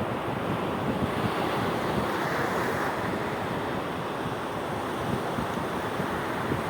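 Sea waves washing onto the shore, a steady rushing surf with a slight swell about two seconds in, mixed with wind noise on the microphone.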